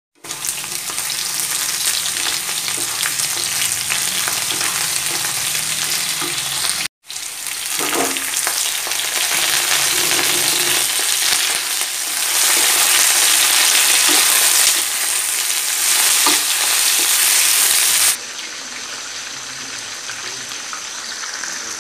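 Vegetables sizzling and spitting in hot oil in a wok, stirred with a wooden spatula that scrapes now and then. The sizzle cuts out for a moment near seven seconds and turns quieter about eighteen seconds in, as fish steaks fry in shallow oil.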